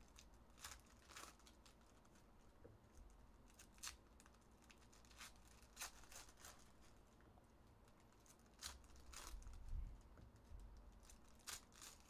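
Faint handling of trading-card packs and cards: scattered soft ticks, crinkles and rustles of foil wrappers being torn open and cards being slid and stacked, a little busier a few seconds before the end.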